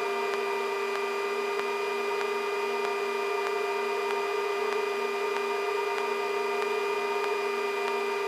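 Sikorsky S-64 Skycrane helicopter hovering over its landing pad, heard inside the cockpit: a steady whine of several even tones over a constant hiss from the turbines and rotor drive.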